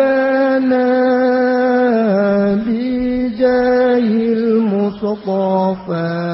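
A man chanting an Arabic devotional supplication (sholawat) in long, drawn-out held notes with short slides between them. The melody steps lower toward the end, with brief breaks about five seconds in.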